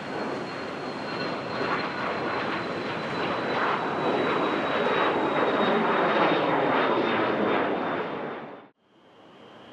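Embraer Phenom 300 business jet's twin turbofans passing close, growing louder, with a steady high whine and a lower tone sliding down in pitch as it goes by. The roar cuts off suddenly near the end, leaving a much quieter steady aircraft whine.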